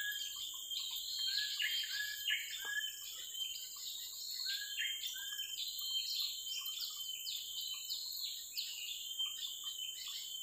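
Birds chirping in rapid, overlapping short calls, over a steady high-pitched drone of insects.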